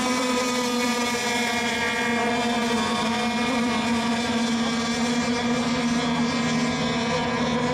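Radio-controlled racing boats' small engines running at racing speed, a steady buzzing drone that holds its pitch.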